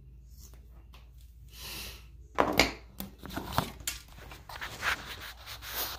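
Handling noise as the phone is picked up and moved: knocks, and cloth rustling against the microphone. It starts about two and a half seconds in, after a quiet stretch.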